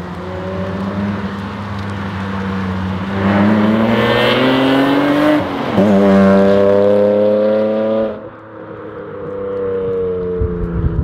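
Lexus IS300's non-turbo 2JZ straight-six, fitted with a long-tube header and a small muffler, accelerating hard past. Its note climbs from about three seconds in, dips briefly at a gear change, and climbs again. It then cuts off abruptly and leaves a fainter engine note falling away as the car moves off.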